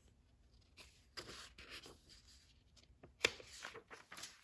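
Pages of a picture book being handled and turned: faint paper rustling, louder for a moment about three seconds in.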